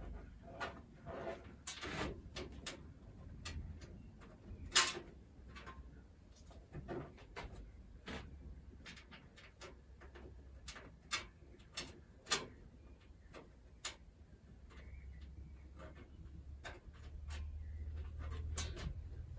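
Scattered small clicks and light knocks of hardware being handled inside a PC case as motherboard standoffs are fitted, the sharpest knock about five seconds in, over a steady low hum.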